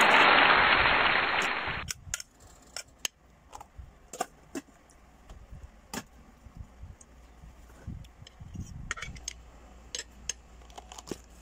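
A loud steady hiss that cuts off suddenly about two seconds in, then a metal spoon and fork clinking and scraping against a plate of rice in sharp, irregular clicks.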